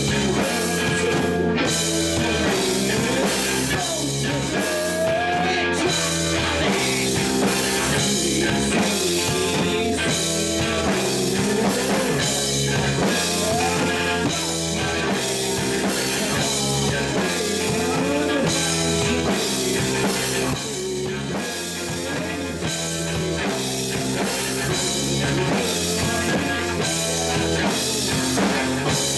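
Live rock band playing: electric guitars, keyboard and drum kit going steadily through the whole stretch.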